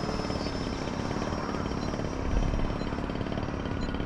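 Radio-controlled model airplane engine running steadily in flight, a constant high whine over a fast, even buzz.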